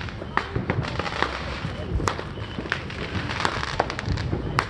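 Fireworks going off all around: a string of sharp bangs and pops at irregular intervals, about two or three a second, over a rumbling background.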